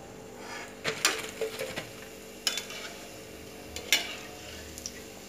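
Steel slotted spoon clinking several times against a steel kadhai as deep-fried kofte are scooped out of the hot oil, over a faint sizzle of frying.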